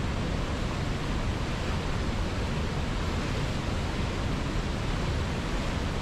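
Steady, unbroken rush of white-water rapids tumbling over boulders, with a waterfall further up the gorge.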